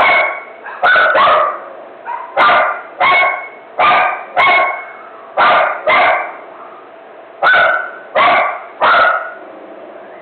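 A dog barking in a frenzy: about a dozen loud barks in quick bursts of one to three, with short pauses between the bursts.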